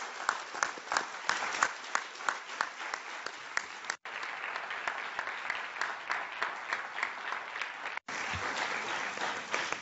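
Audience applauding, with one person's sharp claps close to the microphone standing out at about three a second for the first four seconds, then a steadier, denser applause. The sound cuts out for an instant twice, about four and eight seconds in.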